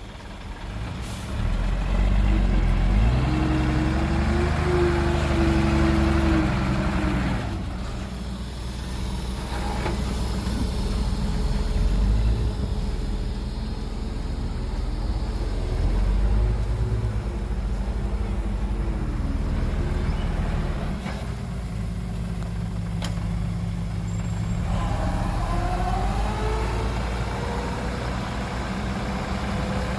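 Diesel engines of a Komatsu D20P bulldozer and small dump trucks working, a heavy steady drone whose pitch rises and falls as the machines take load. The engine note is loudest in the first few seconds, and a rising whine comes in near the end.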